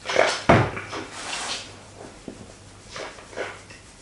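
A drinking glass set down on a plastic tray table after a sip of cider, with a thud about half a second in, then a breathy hiss.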